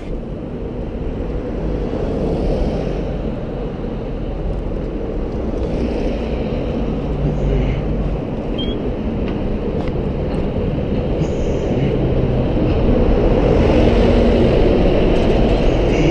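Wind buffeting the microphone of a moving bicycle, mixed with road traffic noise; the rumble grows louder in the last few seconds.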